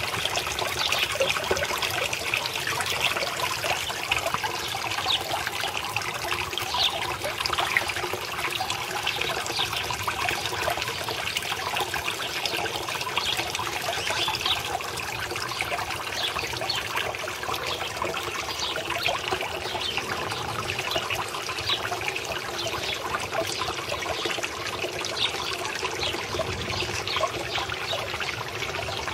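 A fountain's stream of water splashing steadily into a small garden pond, a continuous trickling patter of falling water.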